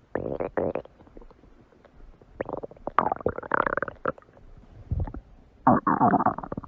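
A person's stomach growling in several separate gurgling bursts, the longest lasting about a second just past the midpoint, with a short low thump a little later.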